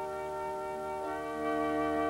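Background music: slow sustained notes in several voices, moving to new notes every second or so.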